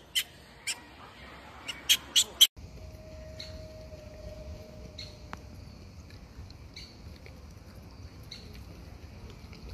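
Short, sharp, high animal calls repeated a few times a second, the loudest sound here; they cut off abruptly about two and a half seconds in. Afterwards come only faint short chirps every second or two.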